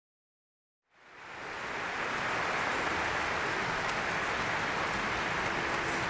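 Audience applauding, fading in from silence about a second in and then holding steady.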